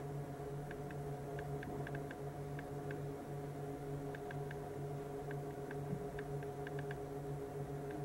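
Steady hum of an Adande refrigerated drawer unit running, with faint short ticks scattered irregularly through it.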